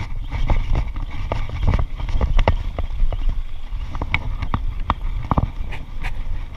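Irregular sharp clicks and knocks, several a second, over a steady low rumble.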